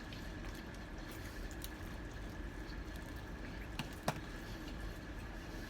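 Faint wet chewing and mouth sounds of someone eating fried chicken, with two small clicks about four seconds in, over a steady low hum.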